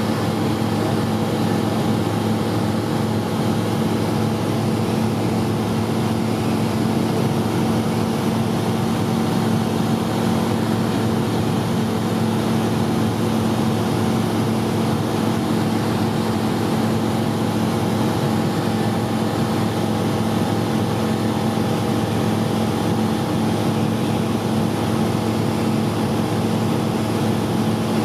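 Light single-engine propeller airplane's engine and propeller droning steadily in flight, heard inside the cockpit.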